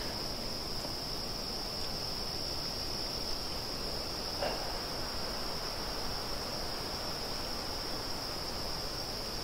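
Steady, unbroken high-pitched trilling of an insect chorus in the woods, over the even rush of wind through the trees.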